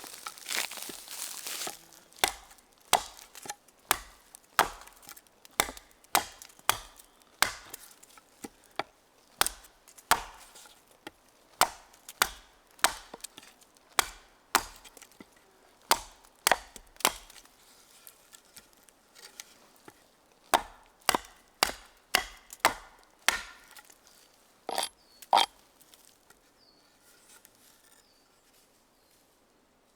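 Repeated chopping strikes of a blade into wood, one every half second to a second in runs, with a brief pause partway through and a final couple of harder blows. A short rustle comes before the first strike.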